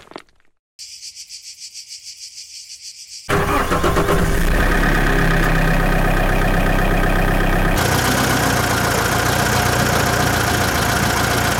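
Tractor engine sound: a faint rapid cranking rhythm, then about three seconds in the engine starts and runs steadily and loudly.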